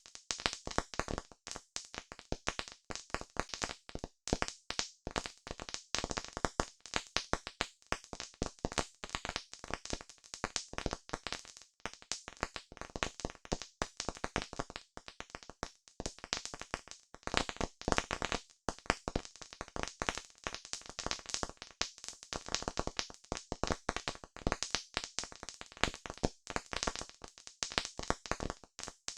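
Campfire crackling: dense, irregular snaps and pops of burning wood with no let-up.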